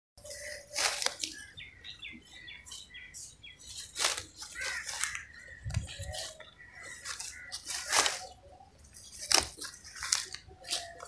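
Green fodder grass being cut by hand, stems ripping and swishing in short irregular bursts, with birds chirping faintly in the background.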